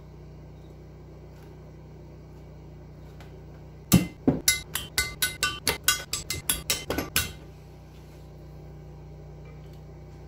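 A quick run of about fifteen light metallic clinks over roughly three seconds, starting about four seconds in: small metal engine parts knocking together as a cylinder head is handled.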